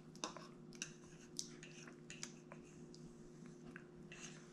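A baby chewing and smacking on a mouthful of soft durian: faint, wet mouth clicks at irregular intervals.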